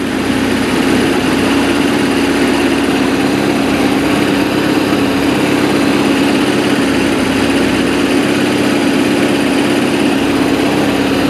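MerCruiser stern-drive boat engine running steadily out of the water on flush muffs, an even drone that holds the same pitch and level.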